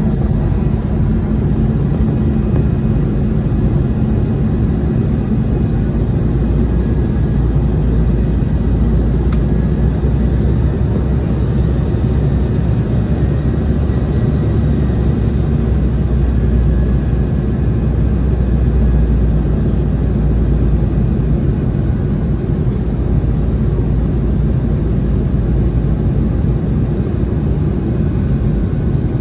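Jet airliner cabin noise from a window seat: a steady, loud rumble of the engines and rushing air.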